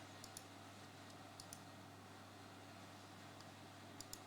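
Faint computer mouse clicks, in quick pairs three times, over a low steady hum.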